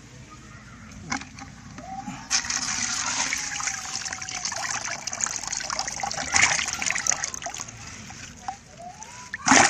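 A freshly caught fish thrashing in a bucket of water, making loud, uneven splashing that starts about two seconds in.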